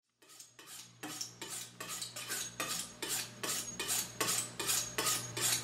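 A knife blade being drawn quickly down a honing steel, alternating sides, in short even strokes about three a second. The strokes are faint at first and settle into a steady rhythm about a second in.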